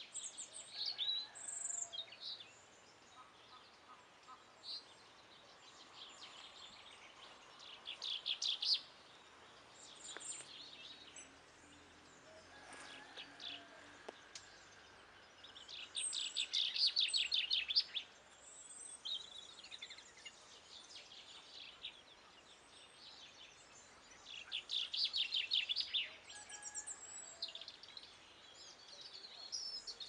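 European robin singing: phrases of quick, high, thin warbling notes, each a second or two long, separated by pauses of a few seconds.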